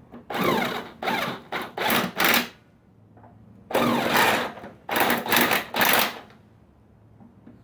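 Cordless impact wrench hammering in short bursts as it runs down the 1/2-inch bolts holding a lawnmower engine to its deck, in two groups of bursts with a pause between.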